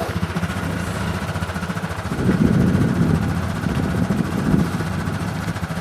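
ATV engine running steadily, getting louder and rougher for a second or so about two seconds in, then easing back.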